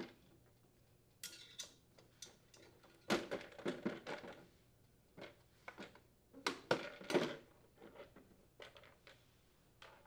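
Black plastic shroud on the underside of a Honda lawn mower being worked loose and pulled off by hand: irregular clicks, knocks and scrapes of hard plastic, busiest around three to four seconds in and again near seven seconds.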